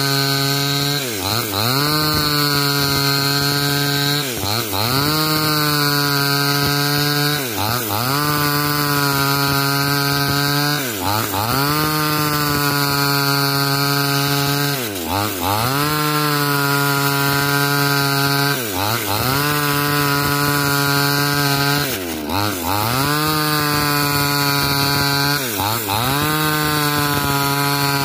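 Two-stroke chainsaw running at high revs while cutting lengthwise along a coconut palm log. Its engine pitch dips briefly and recovers every three to four seconds.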